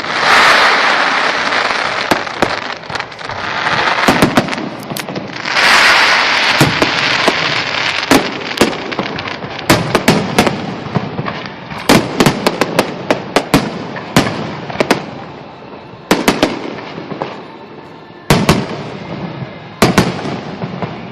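Fireworks display: a rapid string of sharp bangs from bursting aerial shells, with two dense noisy surges of many reports at once, at the start and about five seconds in. The bangs thin out and grow quieter past the middle, then pick up again near the end.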